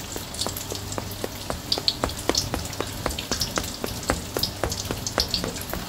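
Food frying in hot oil: a steady sizzle with irregular crackling pops, over a faint low hum.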